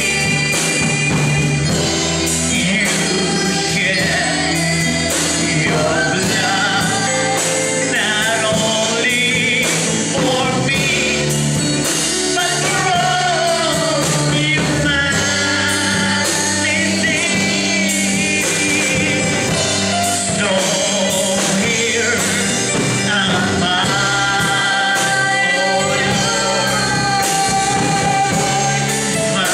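A man singing a gospel song into a microphone over instrumental accompaniment with a steady beat, his voice wavering with vibrato on held notes.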